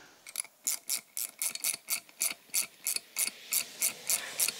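Ratchet clicking in a steady run, about four light metallic clicks a second, as a two-jaw bearing puller is worked to draw a bearing off a scooter gearbox shaft. The bearing has seized on the shaft instead of staying in the cover.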